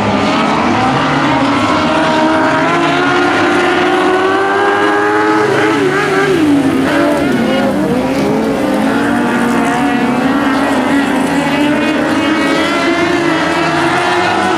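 A pack of compact speedcars running laps on a dirt oval, several engines at high revs whose notes rise and fall as the cars pass. One engine note climbs and then drops away about six seconds in.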